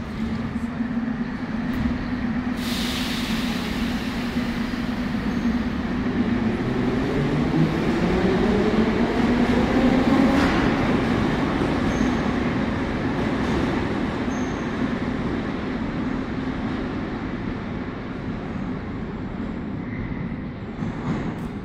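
Numbered-series (81-717/714) metro train pulling out of the station: the traction motors whine, rising in pitch as it gathers speed to a peak about ten seconds in, then the running noise fades as the train leaves the platform. A short hiss of air sounds about three seconds in.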